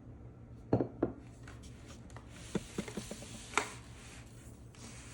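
A drawing board being turned around on a table: two knocks about a second in, then a few lighter taps and clicks, and one more knock a little past halfway.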